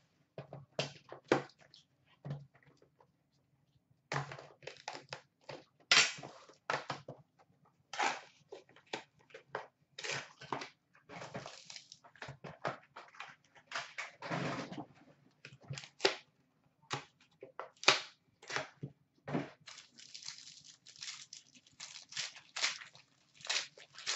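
Plastic and foil card-pack wrapping being torn open and crumpled by hand, with cards and packaging handled: irregular crinkles, rips and light knocks. A brief lull comes a few seconds in.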